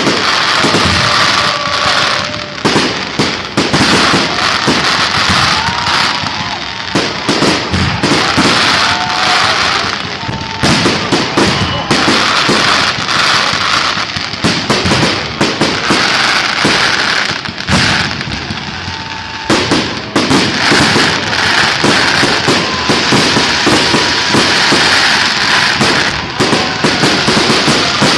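Fireworks display going off continuously: a rapid, irregular stream of bangs with crackling between them.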